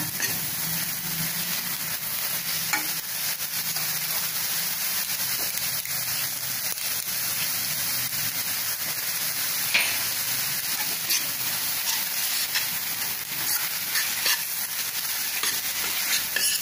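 Chopped vegetables sizzling in hot oil and sauce in a wok while a metal spoon stirs and scrapes them, with a few sharp clicks of the spoon against the pan. The vegetables are being sautéed.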